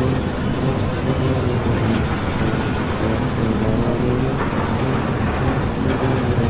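An engine running steadily with a low hum over a dense noisy background.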